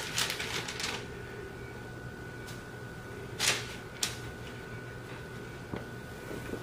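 Kitchen utensils handling food: a spatula and fork lifting biscuits onto parchment paper, with paper rustling at first, a short scrape about halfway through and a few light clicks of metal on the pan. A faint steady high whine runs underneath.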